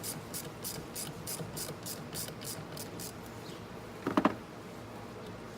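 Socket ratchet clicking at about three to four clicks a second as it is worked on a 10 mm battery-terminal nut, stopping after about three seconds. A brief louder clink follows about four seconds in.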